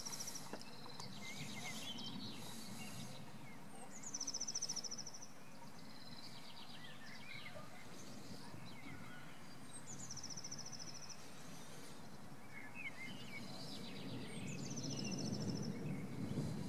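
Songbirds singing outdoors. One bird repeats a short, high trill three times, about every five seconds, and it is the loudest sound. Under the birds runs a low rumble that swells near the end.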